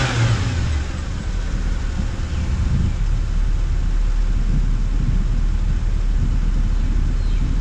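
Open-top Moke car on the move: its engine and road noise under a steady, heavy low rumble of wind buffeting the pole-mounted microphone.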